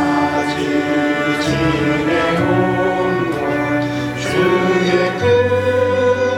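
Church music: a choir singing sustained chords over instrumental accompaniment in a slow gospel song.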